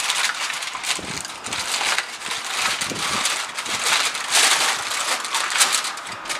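Aluminum foil crinkling and crackling as hands crimp it tight around the rim of a pan, with a louder stretch of crinkling about four seconds in.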